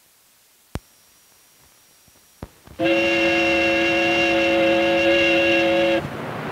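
Faint soundtrack hiss with two sharp clicks, then, nearly three seconds in, a loud, steady chord of several held tones that lasts about three seconds and cuts off suddenly.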